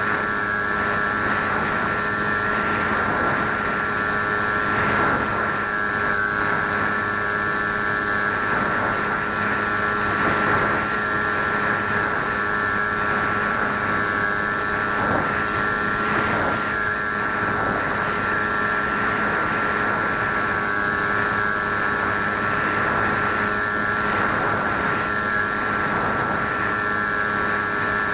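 Swift 2 FPV model plane's motor and propeller running at a steady whine, with wind rushing over the onboard camera's microphone.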